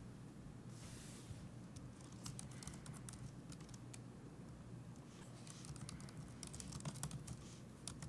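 Faint typing on a computer keyboard: two quick runs of key clicks, about two seconds in and again about six and a half seconds in, over a low steady hum.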